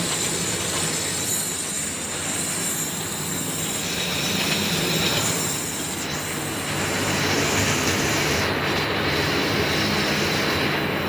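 Corn puff ring production line machinery running steadily: a continuous mechanical noise with a constant low hum and a faint high whine.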